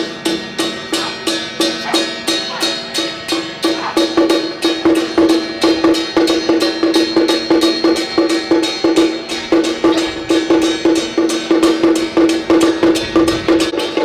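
Song Jiang troupe's drum-and-gong percussion accompaniment playing a steady, even beat of about three strokes a second, with a ringing tone held beneath the strokes.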